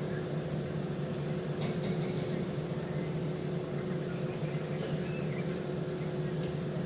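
Steady mechanical hum holding two constant tones, with a few light clicks and knocks scattered through it.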